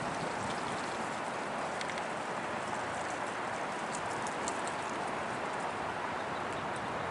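Steady rush of wind, with a few faint scattered ticks.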